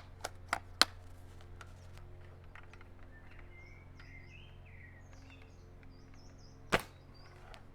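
A few sharp mechanical clicks in the first second, then a single sharp shot from an SRS airsoft rifle's high-powered HPA engine near the end. Birds chirp in between, over a steady low hum.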